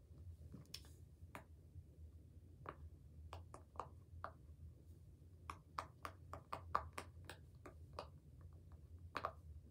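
Silicone pop-it fidget toy being pressed, its bubbles popping in a faint, irregular string of soft pops that come quicker in the middle.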